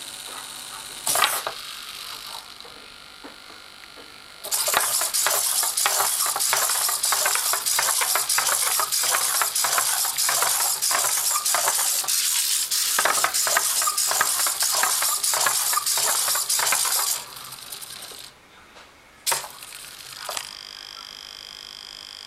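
Hobby micro servos of a small four-legged chopstick-legged robot buzzing and clattering as it walks, its feet tapping rapidly on a wooden tabletop. This runs for about twelve seconds, from about four seconds in. Before and after it come a few single clicks as the servos move the robot up and back down.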